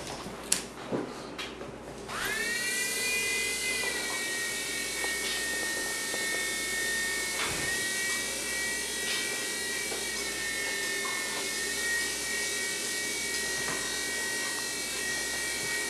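Electric motor and rotor of a mini RC hover UFO spinning up about two seconds in, rising quickly to a steady high whine that holds. A few light clicks come before it starts.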